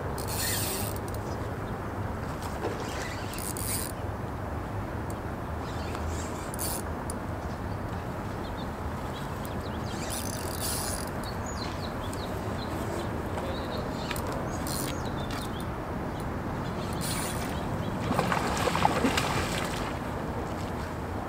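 Spinning reel cranked in short spells as a lure is retrieved, the reel's gears whirring over a steady low background noise. Near the end a louder burst as the rod is cast again and the lure splashes down on the water.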